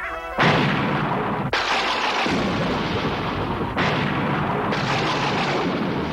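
Cartoon blast sound effects: loud rushing noise that cuts in sharply four times, about half a second, a second and a half, four seconds and five seconds in.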